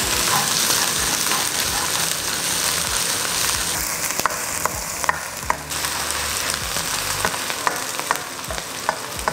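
Diced shallots, onion and spring onion whites sizzling steadily in hot oil in a wok. Scattered clicks and scrapes come from the spatula stirring them against the pan.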